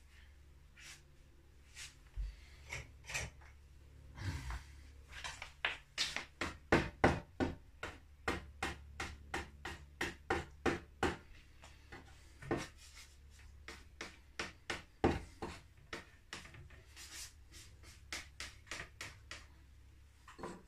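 Slotted kitchen spatula tapping and scraping on a wooden worktop as it works under a round of sourdough dough: a fast, irregular run of clicks and knocks, densest a few seconds in and sparser later.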